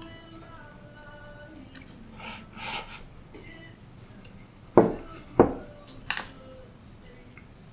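Eating from a ceramic rice bowl with chopsticks: soft rustling and mouth noises, then two sharp knocks about half a second apart as the bowl is set down on the table, and a lighter click of chopsticks on the bowl.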